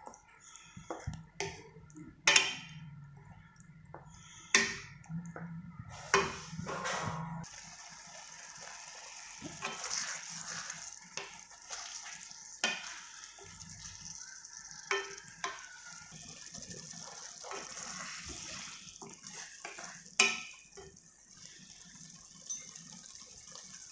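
Wooden spatula scraping and knocking against an aluminium kadai while stirring thick masala gravy, in irregular strokes with several sharp knocks. From about eight seconds in a steady sizzle from the pan runs under the stirring.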